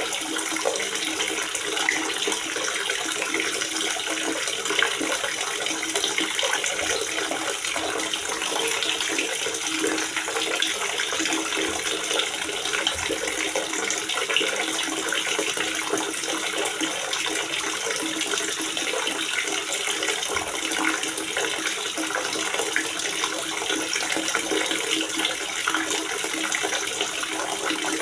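Water gurgling steadily in a water reservoir, an even, continuous rush with no breaks.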